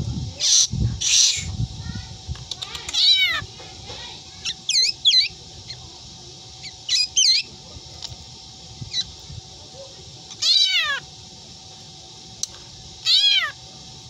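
A caged black drongo mimicking a cat's meow: a series of cat-like meows, some short and some drawn out, about every two seconds. The meows follow two harsh, hissing calls near the start.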